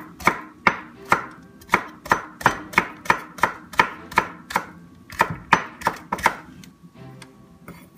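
Chef's knife chopping a green onion on a wooden cutting board, steady strokes about three a second, stopping about six seconds in.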